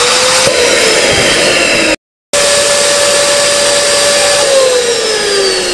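Electric twin-nozzle balloon inflator's blower motor running loud, its hum sliding lower as the balloons on the nozzles fill. It cuts off abruptly about two seconds in, starts again steady, and slides lower again near the end.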